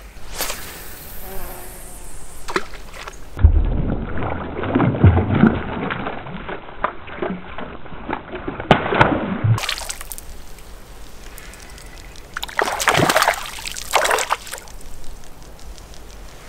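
A hooked rainbow trout splashing and thrashing at the lake surface while being played on a spinning rod. The splashes come in bursts: a cluster in the middle, with low rumbling on the microphone, then two strong splashes near the end.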